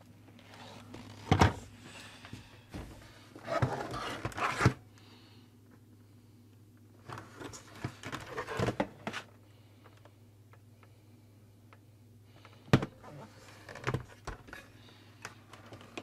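Plastic body and hose of a Shark NV201 upright vacuum being handled and turned over during disassembly: scattered knocks, clicks and scraping of hard plastic, with quiet gaps between. The vacuum's motor is not running.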